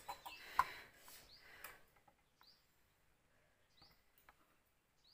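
Faint chirps of a small bird, a short high note repeated about once a second, with a sharp tap about half a second in.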